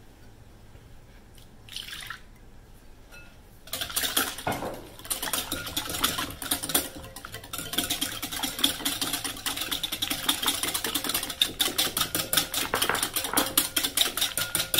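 Milk poured into a glass mixing bowl about four seconds in, then a wire whisk beating it with egg: rapid, rhythmic strokes of the whisk against the glass that grow steadier toward the end.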